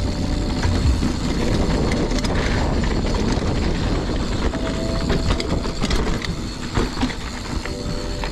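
Mountain bike riding over a rough dirt trail: a steady rumble of tyres on the ground with the bike clattering and rattling over the bumps.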